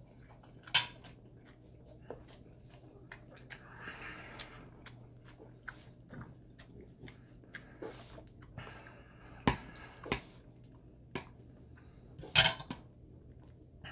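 Close-up eating sounds: chewing and wet mouth noises, with sharp clinks of a metal fork against ceramic plates, the loudest about a second in, twice around 9.5 to 10 seconds in and near the end. A faint steady low hum runs underneath.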